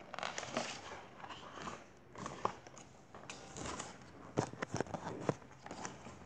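Stiff pages of a hardcover picture book being handled and turned: paper rustling and flapping, with a few sharp taps in the second half.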